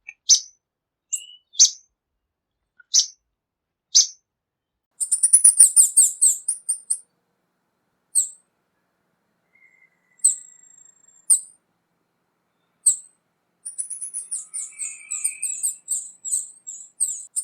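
Tanager calling and singing: single sharp, high chip notes at first, then a burst of rapid high twittering, a thin high whistle held for about a second, and a longer run of fast twittering song near the end.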